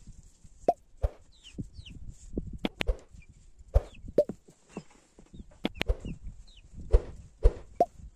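Thin wooden rolling pin knocking and tapping against the board as thin flatbread dough is rolled out: about ten sharp, irregular knocks. A chicken clucks, with faint high falling peeps.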